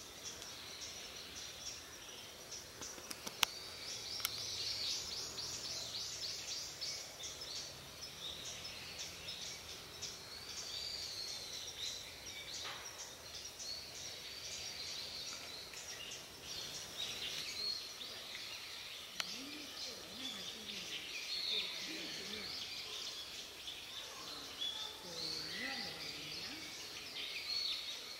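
Small birds chirping and calling over a steady outdoor hiss, with a fast run of repeated notes about four seconds in. Faint human voices murmur in the second half.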